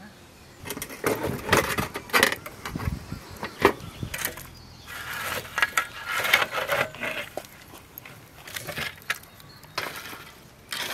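Lumps of charcoal clattering and clinking onto a metal tray as a shovel piles hot coals on top of a grill, in several separate bursts; the coals heat the pide from above in place of an oven.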